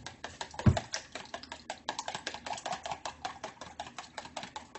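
Two raw eggs being beaten briskly in a ceramic bowl, the utensil clicking against the bowl about six times a second. A single dull thump comes just under a second in.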